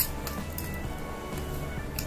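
Background music with steady held notes, and a sharp click right at the start and a smaller one at the end.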